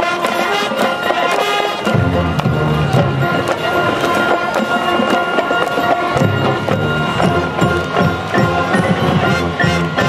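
High school marching band playing a halftime show number: brass carrying sustained chords over steady drumline strokes, with low brass coming in about two seconds in.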